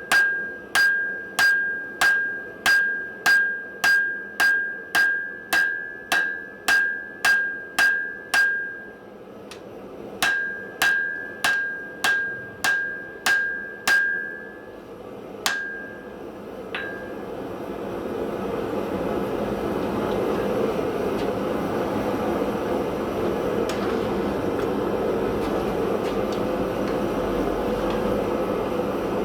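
Steel hammer blows on an anvil, about two a second, each ringing with a clear high tone, in two runs with a short pause between and a couple of last single strikes. After that a steady rushing noise comes up and holds.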